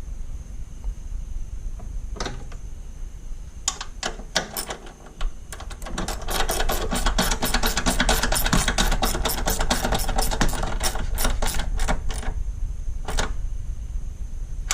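Socket ratchet clicking as a nut is run down on the coolant reservoir's top mount. A few scattered clicks and knocks come first, then a fast, even run of clicks, several a second, for about six seconds.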